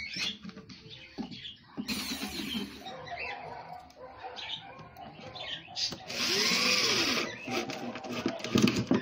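Cordless drill driving screws into pallet boards in two runs of about a second each, one about two seconds in and a louder one about six seconds in.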